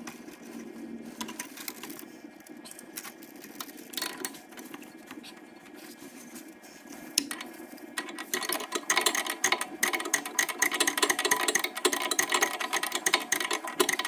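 Hydraulic hose and metal fittings being handled and worked into place in a skid steer's engine bay: rubbing and scattered knocks, then from about eight seconds in a louder, rapid clicking rattle.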